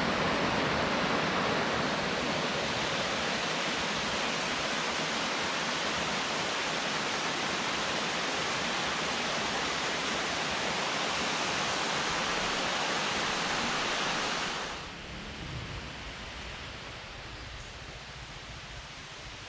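Water rushing steadily over a small cascade of rocks in a jungle stream. About fifteen seconds in the rush drops away to much quieter forest ambience.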